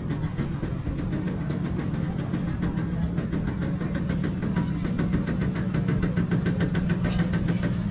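A vehicle engine running steadily, with a rapid, even ticking through the middle.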